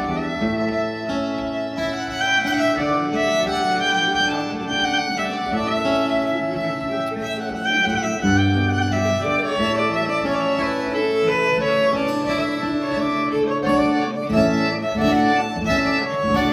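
Fiddle, accordion and acoustic guitar playing an instrumental tune together, with no singing.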